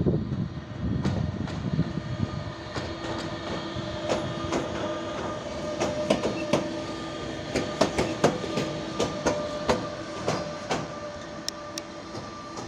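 Bombardier TRAXX electric locomotive passing slowly over pointwork, its wheels clicking sharply over rail joints and points, most thickly in the middle stretch. Under the clicks runs a steady electric whine.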